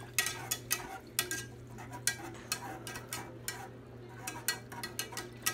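Metal wire whisk stirring gravy in a Teflon nonstick pan, its wires clicking and scraping against the pan in quick, uneven strokes about three times a second. A steady low hum runs underneath.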